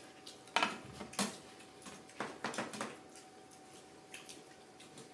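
Tableware clinking: a few sharp, short knocks about half a second and a second in, then a cluster of lighter clinks a little later, over a faint steady hum.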